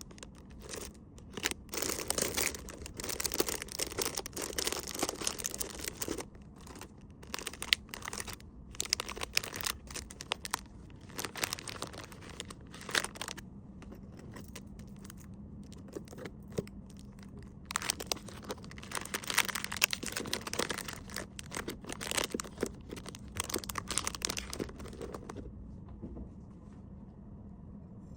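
Packaging crinkling and rustling in irregular bursts as small wrapped items are handled, dying down for the last few seconds, over a faint steady hum.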